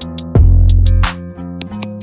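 Background music: an electronic track with plucked guitar over heavy bass and a drum-machine beat.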